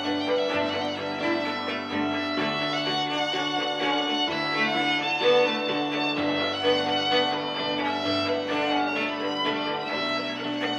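Live trio of violin, cello and Korg electric keyboard playing an instrumental pop arrangement. The bowed strings play over sustained low notes that change every couple of seconds.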